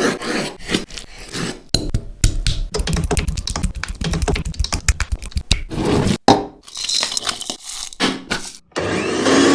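Kitchen food-preparation sounds for chicken tikka in quick succession: many short knocks, scrapes and clinks of utensils against dishes, with a steady hiss for about a second near the end.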